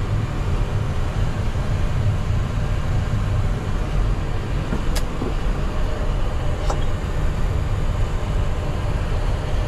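Steady low rumbling background noise, with a sharp click about five seconds in and a fainter click near seven seconds.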